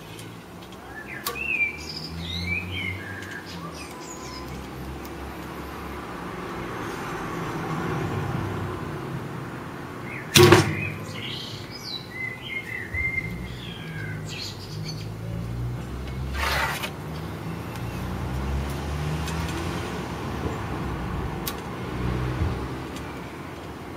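A recurve bow shot once about ten seconds in, the string's release a sharp snap, followed about six seconds later by a shorter knock. Birds chirp at times over a steady low rumble.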